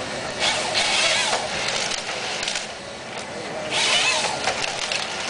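Cat 314D excavator running under load as its PE-42 harvester head processes a log. The head's bar saw whines loudly through a cut about a second in, and again near the end.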